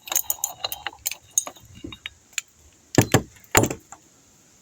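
Metal clinking and rattling, then a few heavy knocks, as an old powder fire extinguisher is handled.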